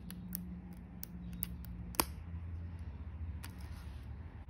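Steel tweezers prising the plastic butterfly mechanism out of a MacBook Pro key well: a few small clicks and ticks, with one sharper snap about two seconds in as the mechanism comes free.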